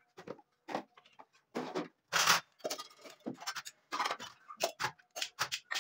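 Irregular short scrapes and rustles, about a dozen in quick succession, the loudest a little over two seconds in, from hands working a thin metal tool against a small turned-wood candle stand.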